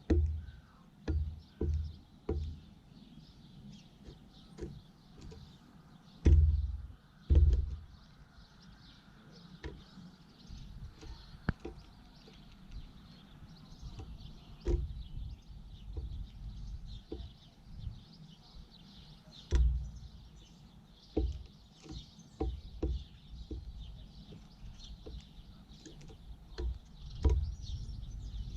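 Faint bird chirps in the background, broken by irregular low thumps and sharp clicks, loudest about six, seven and twenty seconds in.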